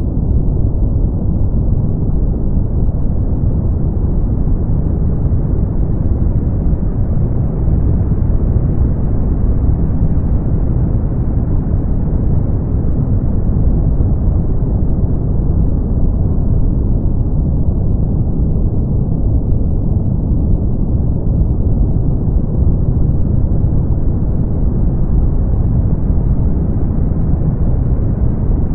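Synthetic brown noise: a steady, deep rushing hiss weighted toward the low end, its upper edge slowly swelling and easing every several seconds.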